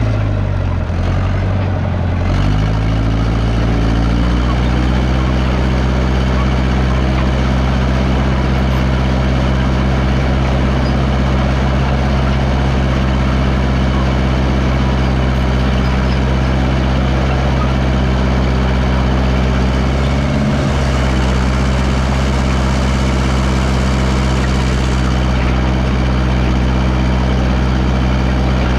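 Engine of a 1969 Massey Ferguson 300 crawler dozer running steadily under load. About a second in its pitch drops, then climbs back over the next few seconds, and it stays steady after that.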